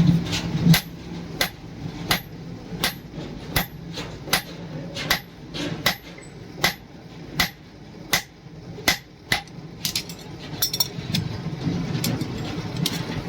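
Steady, evenly paced hand-hammer blows on leaf-spring steel over an anvil, a little more than one a second, each a sharp metallic strike: forging the spear blade.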